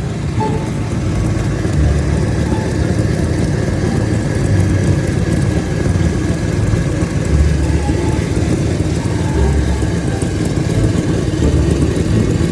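Car engine running, with a low exhaust rumble that swells at times. The car has an exhaust leak that the customer reports after earlier welding work on the exhaust.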